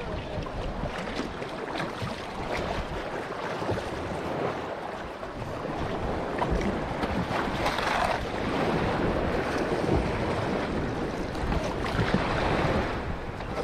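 Water rushing and splashing against a sailing kayak moving under sail, with wind buffeting the microphone; it grows a little louder from about halfway, with a few stronger splashes.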